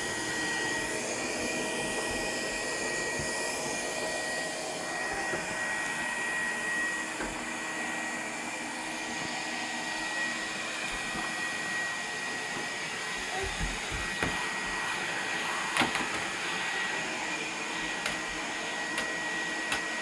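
Canister vacuum cleaner running steadily, its motor giving a high steady whine over the rush of air. A few short knocks come in the second half.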